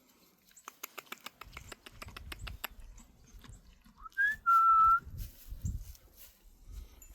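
A short whistle: a quick rising note, then a held steady note about half a second long, the loudest sound here. Before it comes a run of quick clicks, about five a second, with low rustling throughout.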